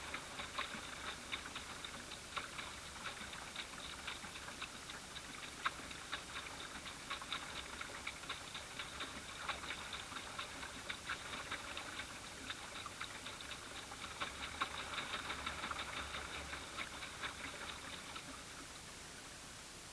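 Small ripples lapping against a plastic boat hull: irregular light ticking and pattering over a steady hiss, fading out near the end.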